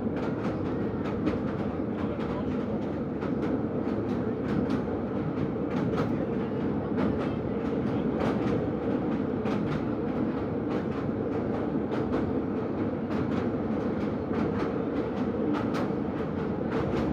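Train running along the track: a steady rumble with irregular sharp clicks of the wheels over the rails.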